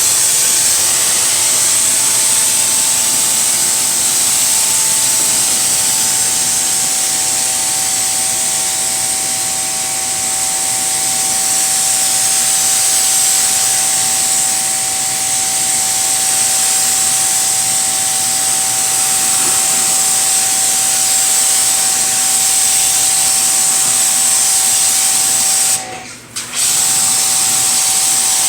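Water spray rinsing hull cleaner off a boat hull: a loud, steady hiss with a faint steady whine underneath. It cuts out briefly near the end, then starts again.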